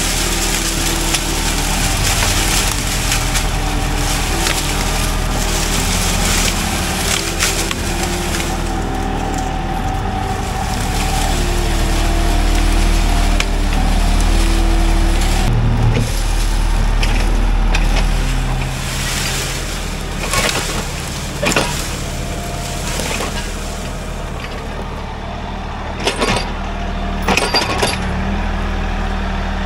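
Tractor engine running steadily as it works, its pitch and level shifting a little. In the last third come a few sharp knocks and clatters.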